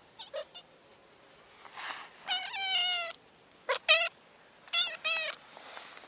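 A cat meowing repeatedly: a few short chirps at the start, a longer, slightly falling meow about two seconds in, then two quick meows and one more near the end.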